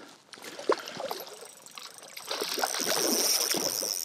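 Hooked trout splashing and thrashing at the surface while being played on a spinning rod. From about two seconds in, a steady high-pitched, rapidly clicking whir, typical of a spinning reel's drag giving line as the fish runs.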